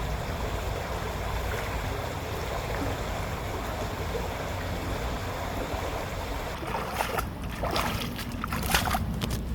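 Creek water rushing steadily. A run of short, sharp sounds comes in over it in the last few seconds.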